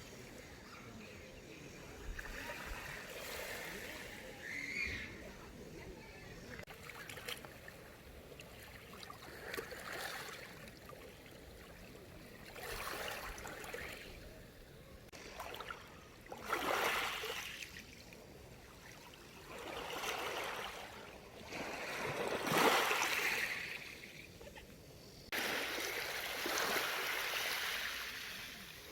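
Water splashing and washing in repeated surges every few seconds, with a sudden change in the sound near the end.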